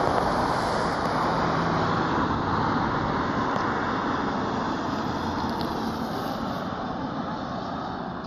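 Road traffic: a vehicle going by on the road, its tyre noise loudest at first and slowly fading away.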